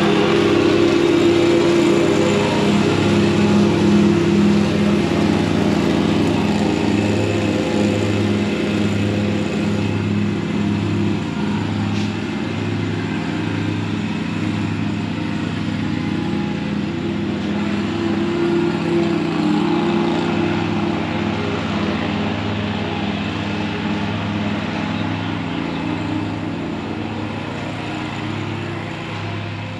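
A small engine running steadily, its low drone throbbing about once a second.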